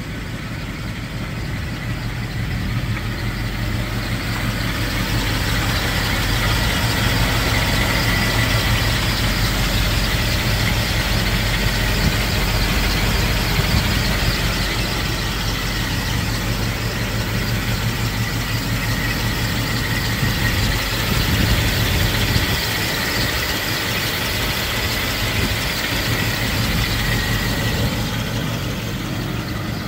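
1953 Ford F-100's flathead V8 idling steadily, heard with the hood up, with a faint steady high whine above the engine hum.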